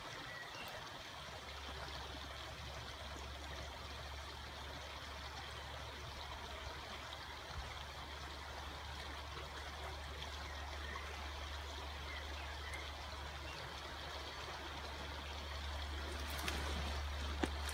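Steady rush of flowing river water, with a steady low rumble underneath. It grows a little louder near the end.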